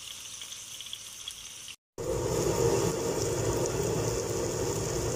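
Chicken pieces frying in hot oil in a pan, a steady sizzle. About two seconds in, the sound cuts out briefly and comes back louder and fuller, with a steady rushing hum under the sizzle, described as noisy.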